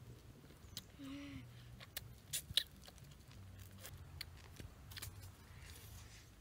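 A child eating grilled chicken: scattered sharp clicks and smacks of biting, chewing and pulling meat off the bone, with a couple of louder ones about two and a half seconds in.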